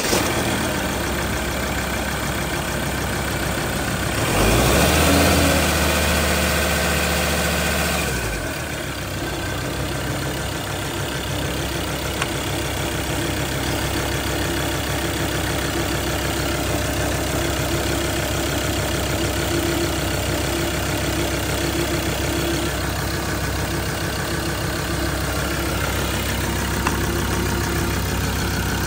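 2014 Ford Ranger's 3.2-litre five-cylinder turbo diesel idling. About four seconds in it is revved briefly, rising in pitch and loudness, and after about four seconds it settles back to a steady idle.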